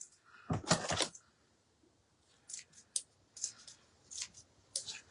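Scissors snipping in a row of short, sharp cuts, with a louder rustle of handled craft material about half a second in.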